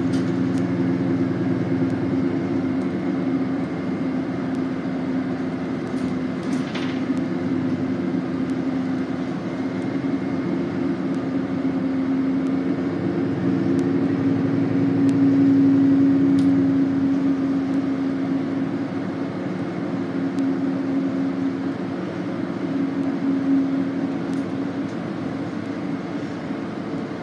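Interior ride noise of a 2019 Nova Bus LFS hybrid city bus under way: a steady drivetrain hum over road noise, swelling somewhat louder about halfway through, with a few faint rattles or clicks.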